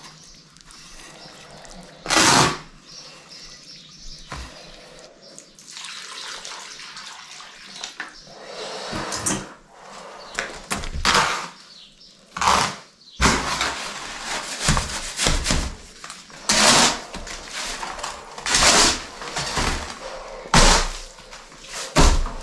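Lime mortar of quicklime, water and sand being hand-mixed with a trowel and shovel on a board: irregular scraping and slapping strokes through the wet, gritty mix. The strokes come more often and louder in the second half.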